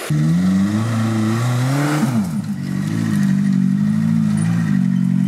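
Suzuki Samurai 4x4's engine running under load as it crawls through mud, its revs rising and falling, with a brief dip and pickup about two seconds in.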